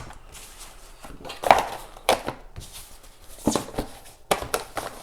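A keyboard and its cable being packed back into a cardboard box: a string of knocks and short rustles, the loudest about one and a half seconds in, with a quick pair of knocks near the end.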